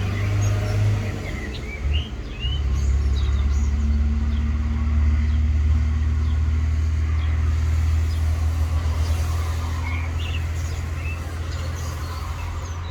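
A low, steady rumble with birds chirping briefly a few times over it. The rumble eases slightly near the end.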